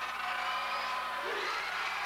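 Crowd noise in a school gymnasium: many voices talking and shouting at once, with one short voice rising out of it about a second in.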